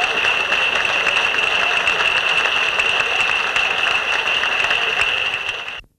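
An audience applauding, a dense crackle of many hands clapping, with a steady high-pitched whine running through it. It cuts off suddenly near the end.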